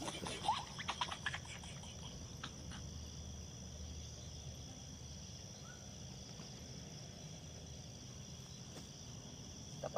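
Crickets chirring in a steady, faint, high continuous trill, with a few soft clicks in the first second or so.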